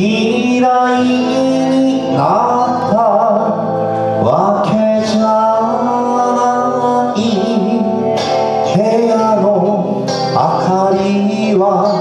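Live acoustic band music: acoustic guitars playing with a man singing over them.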